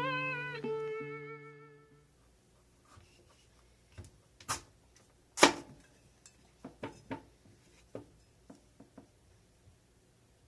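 Acoustic guitar music with sliding, wavering notes fades out over the first two seconds. Then come a series of irregular short knocks and clicks, the loudest about halfway through, like small things being handled and set down in a kitchen.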